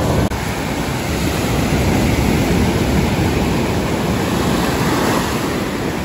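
Ocean surf breaking and washing up on a sandy beach, a steady rush of water noise.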